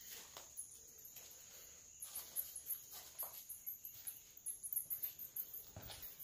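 Rapid, very high-pitched chirps from small animals, coming in clusters from about two seconds in, over a steady high insect-like hum, with faint footsteps on a floor littered with dry leaves and bamboo.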